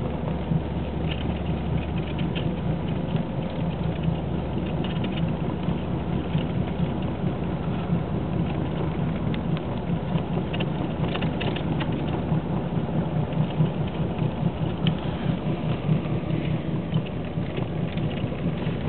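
Steady rumble inside a car's cabin while driving on a snow-covered road in a snowstorm: engine, tyre and wind noise, with scattered faint ticks throughout.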